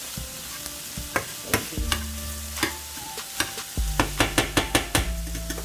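Ground chicken, onions and bell pepper sizzling in a frying pan while a utensil stirs and scrapes them, knocking against the pan. A quick run of taps comes about four seconds in, and a low hum comes and goes.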